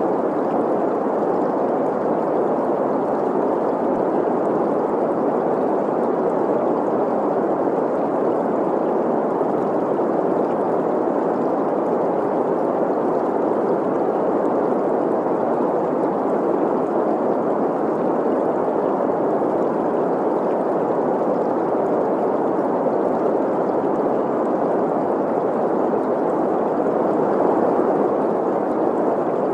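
Green noise, a steady even hiss centred in the middle of the range, blended with the sound of a flowing stream, unchanging throughout.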